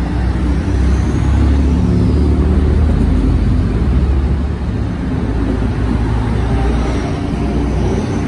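DSB IC3 (MF) diesel multiple unit moving past close by along the platform: a steady low diesel-engine drone over the rushing noise of the wheels and running gear.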